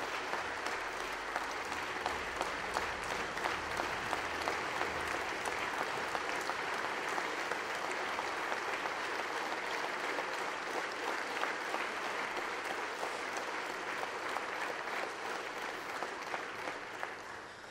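A large audience of parliamentary deputies applauding steadily, dying down near the end.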